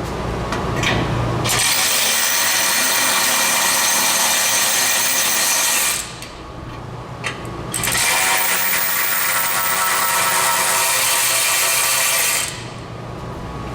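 A handheld power tool runs in two long spells of about four and a half seconds each, with a short pause between, spinning out the 15 mm exhaust flange bolts.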